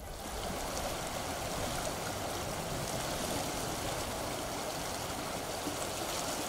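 Shallow river running over stones and gravel: a steady rush of flowing water.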